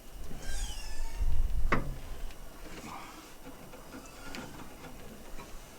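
Skid steer cab tilting back on its pivots: a squeak falling in pitch, a low rumble and a sharp metallic knock just under two seconds in, then a few faint ticks.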